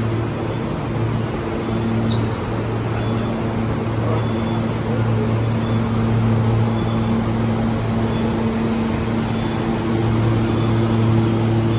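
Electric commuter train standing at a station platform, giving off a steady low hum with an even rush of noise.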